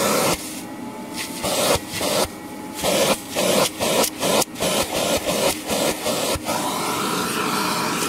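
Vacuum cleaner running with its crevice tool worked over a foam pre-motor filter, the suction noise repeatedly muffling and surging back as the nozzle seals against the foam and lifts off, then running steadily again near the end.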